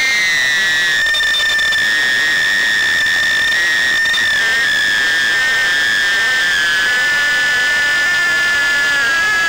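The tiny brushless motors and propellers of a Happymodel Mobula6 HD 1S micro quadcopter whining at a steady high pitch in low flight, heard through its onboard camera. The pitch eases slightly lower in the second half.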